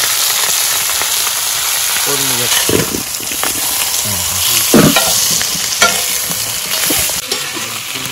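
Whole masala-coated fish sizzling in hot oil on a wide flat iron griddle: a steady frying hiss. A metal spatula scrapes and knocks against the pan a few times as the fish are turned, loudest about halfway through.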